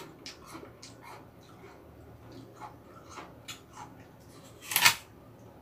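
Raw Hongok apple being chewed with small crisp crunches, then one loud crisp bite into the apple near the end.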